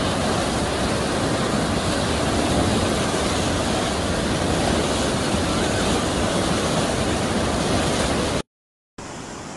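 Flash flood torrent of muddy water rushing down a rocky wadi, a steady rush of water. It cuts off abruptly a little past eight seconds in, and a fainter rush of water resumes near the end.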